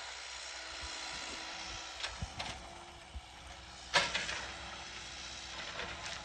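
Excavator running steadily while the wood of a tree cracks and snaps under the push, with a few sharp cracks about two seconds in and the loudest about four seconds in.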